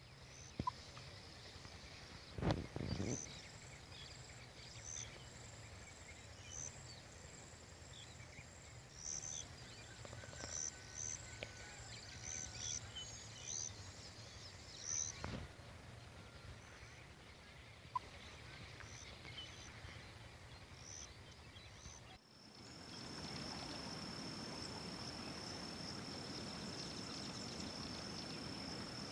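Faint outdoor ambience: scattered short high bird chirps with two sharp clicks, one a few seconds in and one about halfway. After a cut about 22 seconds in, a steady high insect buzz over the hiss of a flowing river.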